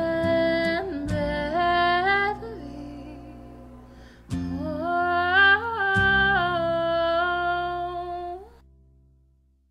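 The end of a song cover: a female voice hums a wordless melody over strummed acoustic guitar chords, with a fresh strum about four seconds in and again about six seconds in. The song then fades out to near silence near the end.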